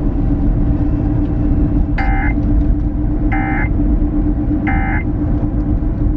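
Three short, identical warbling data bursts from the car radio, about 1.3 seconds apart: the Emergency Alert System end-of-message code closing a broadcast severe-weather warning. Under them runs the steady rumble and hum of the moving car.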